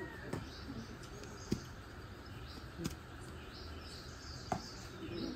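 Quiet outdoor rural ambience with faint high bird chirps and a few sharp clicks. A crow's caw trails off at the very start, and a dove begins cooing near the end.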